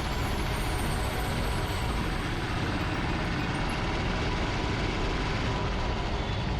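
Mumbai Metro Line 2A train running at speed, giving a steady, even rumble.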